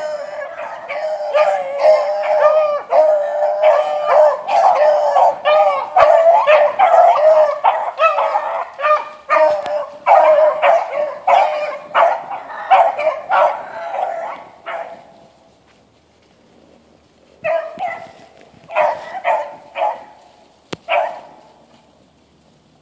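A pack of four young beagles baying together in many overlapping voices. The calls die away about fifteen seconds in, then a few voices start up again briefly before stopping.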